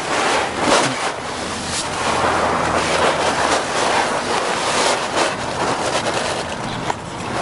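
Tent fabric and a sleeping pad rustling as a person crawls into a one-person tent and lies down, over steady wind noise on the microphone.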